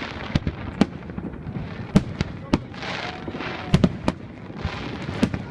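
Fireworks going off: about nine sharp bangs at uneven intervals, some in quick pairs, over a continuous crackling hiss.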